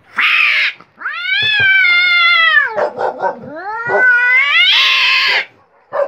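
Cat caterwauling in an aggressive standoff: a short harsh hiss, then a long drawn-out yowl, then a second yowl that rises and breaks into a harsh scream near the end. These are threat calls between a stray cat and a house cat it has been attacking.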